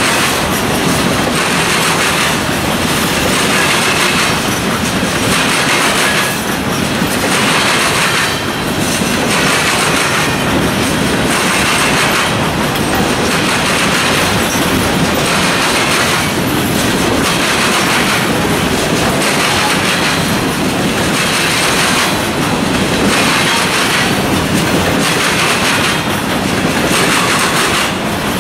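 Freight train of covered hopper cars rolling past: a steady rumble of steel wheels on the rails, with a clickety-clack that swells about every couple of seconds as each car's trucks go by.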